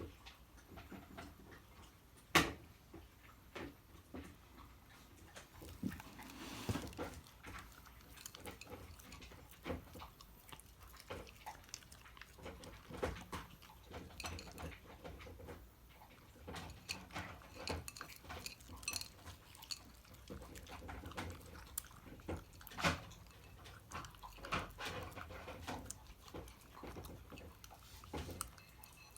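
Shiba Inu eating its food from a bowl: irregular crunching, licking and clinking of the bowl, with a sharper knock a couple of seconds in and another late on.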